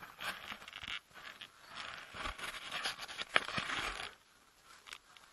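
Scraping and rustling close to the microphone with a few sharp knocks, the handling noise of a head-mounted camera as its wearer moves about. It dies down after about four seconds.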